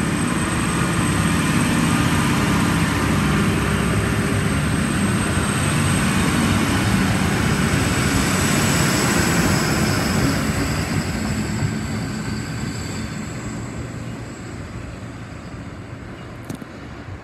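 NSW TrainLink Xplorer diesel railcar train running past at close range, its engines droning and wheels rumbling on the rails, then fading steadily as it pulls away from about ten seconds in.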